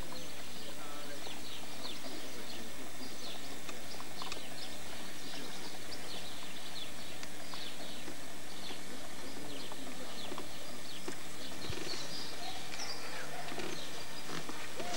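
Small birds chirping repeatedly with short, sharp calls, over a faint steady hum.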